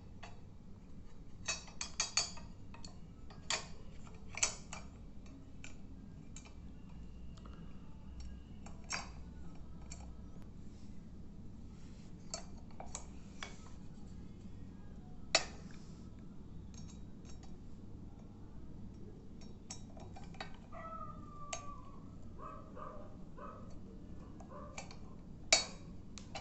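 Metal parts of a door hanger being handled and fitted together: irregular clicks, clinks and knocks, a few sharper ones standing out, with a brief squeaky scrape about two-thirds of the way through.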